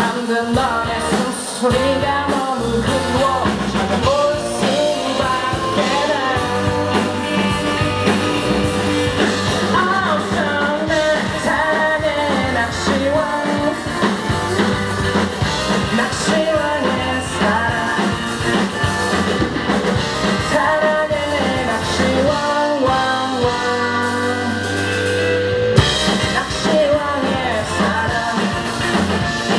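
Indie rock band playing live: a male voice sings over two electric guitars, electric bass and a drum kit.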